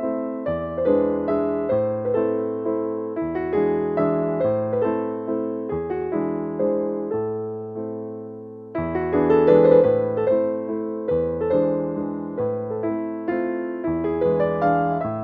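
Background piano music: a gentle keyboard melody of struck, decaying notes over low bass notes, the phrase starting over about nine seconds in.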